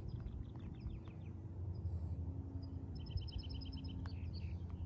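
Songbirds singing: a run of quick falling chirps, then a fast trill of about ten notes a little past halfway, with scattered single notes, over a steady low rumble.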